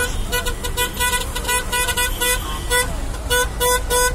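Car horn sounding in rapid short beeps of one fixed pitch, about five a second, pausing briefly midway, over the low rumble of idling traffic.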